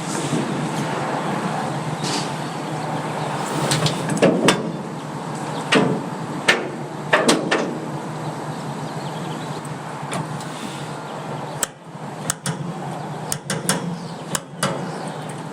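A vehicle engine running steadily, with a series of sharp knocks and clanks over it, bunched together about a third of the way in and again near the end.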